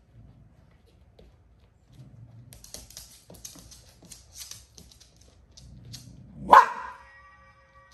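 Dog making a low rumbling sound with scattered light clicks, then giving one loud, sharp bark about six and a half seconds in.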